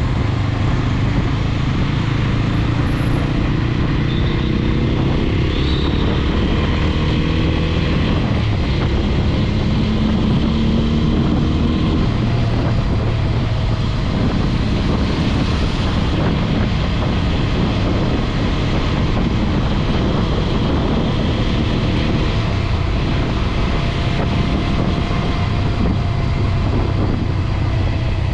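TVS Apache RTR 200 4V motorcycle's single-cylinder engine running under way, its pitch rising and falling with the throttle, over a steady rush of road noise.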